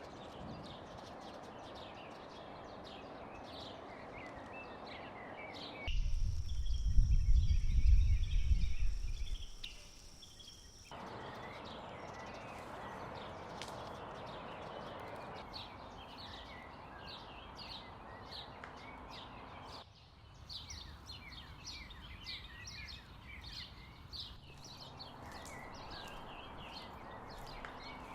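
Small birds chirping and singing over a steady outdoor hiss. A loud low rumble breaks in about six seconds in and fades after about four seconds.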